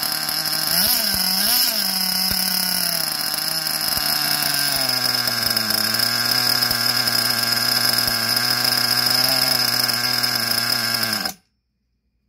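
SH .21 two-stroke nitro glow engine running rich. It revs up briefly twice about a second in, settles to a lower steady idle, then stops abruptly near the end.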